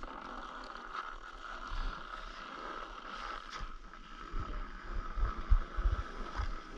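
Steady hiss of sliding over packed snow, with wind buffeting the microphone in low thumps from about four seconds in.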